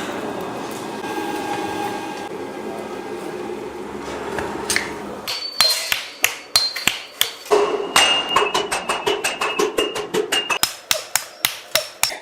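A steady rushing noise, then, about five seconds in, rapid hand-hammer blows on bronze begin, several a second, each strike leaving a brief metallic ring.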